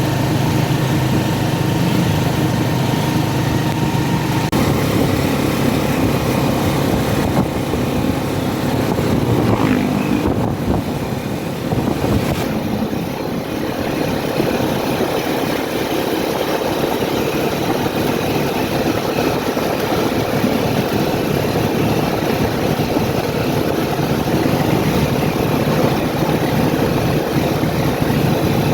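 Steady engine and road noise of a moving vehicle, heard from inside it as it drives along.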